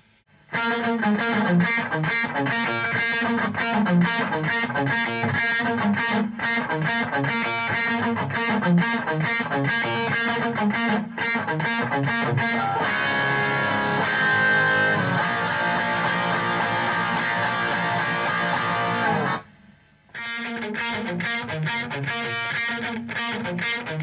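Distorted electric guitar riffs through a Marshall-style tube amp set for hard-rock crunch. The takes are split by a short silence partway through and compared for their power-tube sound, one using 6550 tubes.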